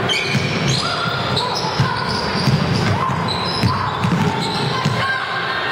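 Basketball being dribbled on a hardwood gym floor, with many short, high squeaks from sneakers as players cut and run, over spectators chattering.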